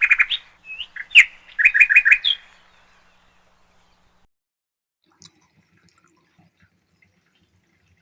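Bird chirping: a quick run of short, high chirps for the first two and a half seconds, then stopping, leaving only a few faint clicks.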